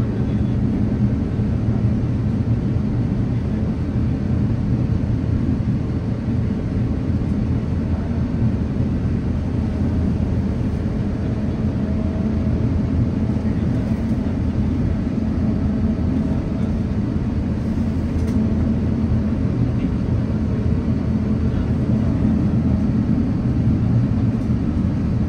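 Steady low drone inside the cabin of an Airbus A350-900 on the ground, its Rolls-Royce Trent XWB engines running at idle.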